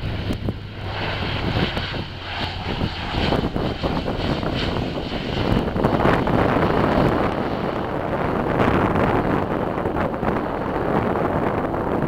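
Twin turboprop engines of a Dash 8-400 airliner running as it rolls out on the runway just after touchdown. A high whine fades after about five seconds while a louder rushing sound builds and holds, with wind on the microphone.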